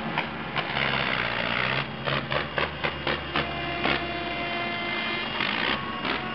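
Tractor diesel engine running as the tractor drives past towing a steel trailer, with a run of rattling knocks about two to three and a half seconds in.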